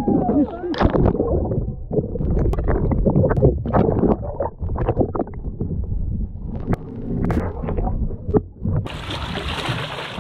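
Muffled underwater sound picked up by a camera held below the surface: water rushing and gurgling, with scattered sharp clicks and knocks. About nine seconds in the sound changes suddenly to the open-air hiss of water splashing as a shark thrashes at the surface beside the boat.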